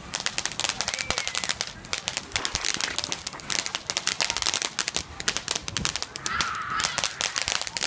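Rapid, irregular crackling and popping of firecrackers, many pops a second. A short, high, wavering squeal comes about six seconds in.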